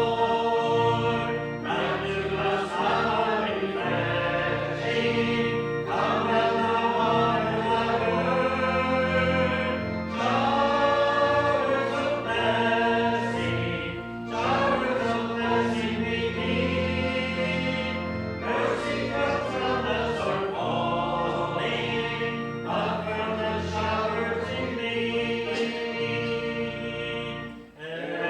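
Church congregation singing a hymn together over steady sustained accompaniment, phrase after phrase, with a brief pause between lines near the end.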